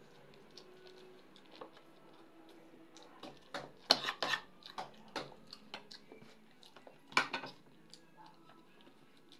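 Close-up eating at a table: scattered clicks and clinks of a fork and fingers working fish and rice on a china plate, mixed with chewing. The clicks come thickest around four seconds in and again at about seven.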